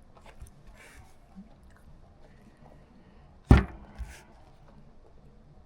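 Faint rustling, then a single sharp thump about three and a half seconds in, followed by a softer thump and a brief hiss.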